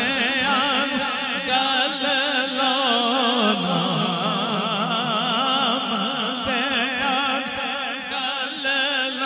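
A male voice singing a naat into a microphone with no instruments, holding long notes with heavy vibrato. The pitch steps down about three and a half seconds in.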